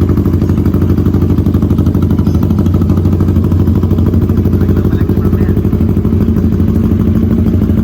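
Bristol Bobber 650 motorcycle engine idling steadily through its new aftermarket muffler, with a fast, even exhaust pulse.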